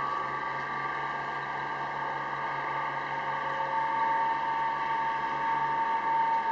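Sightseeing boat's engine running steadily: a constant drone with a high whine that grows a little stronger about halfway through.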